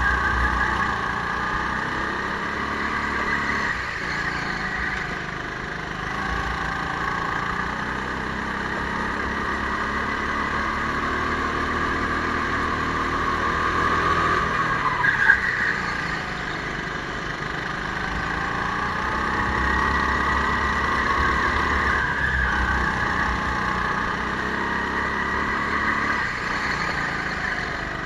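Go-kart motor running at racing speed, its pitch rising and falling as the kart brakes and accelerates through the corners of the track. A single short knock comes about halfway through.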